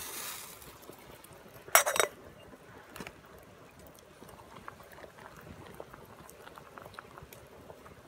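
Pot of water bubbling on a campfire, with one sharp metal clink about two seconds in and a few small ticks afterwards.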